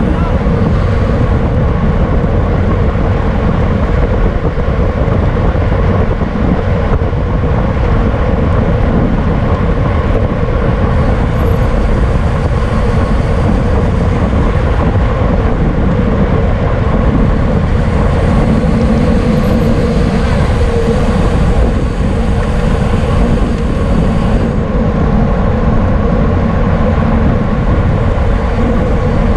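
Steady wind rush on the microphone of a camera riding along on a racing bicycle at speed, with a faint steady hum underneath.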